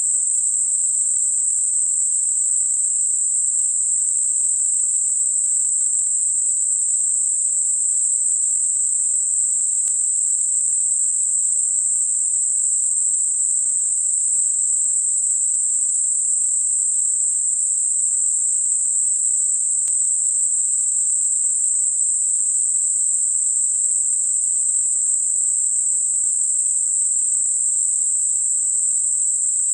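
Synthetic narrow band noise centred at 8 kHz: a steady, high-pitched hiss confined to roughly 6 to 10 kHz, unchanging in level, made as a tinnitus masker.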